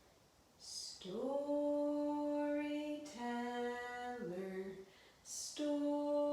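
A woman singing a slow, lullaby-like tune in long held notes, each phrase stepping down in pitch, with an audible in-breath before each phrase.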